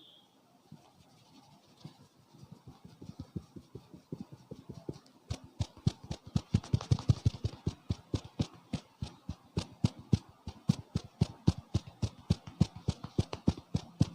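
Hands striking rhythmically in a head massage: soft, uneven taps at first, growing louder, then fast, regular strikes at about four to five a second from about five seconds in.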